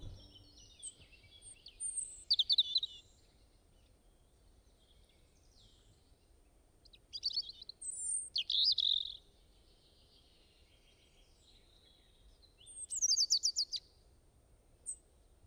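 A songbird singing three short phrases of quick, high chirps and trills a few seconds apart, with a single chirp near the end, over a faint steady hiss.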